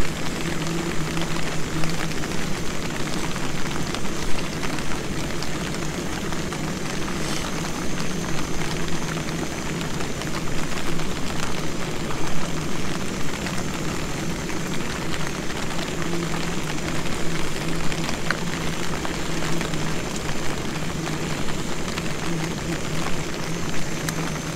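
Portable camping gas stove burner running with a steady rushing roar and a low hum underneath, heating a pot for soup.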